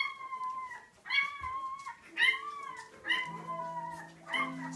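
Five-week-old Labrador puppies whining and yelping as they wrestle: about five high, arching cries, roughly a second apart.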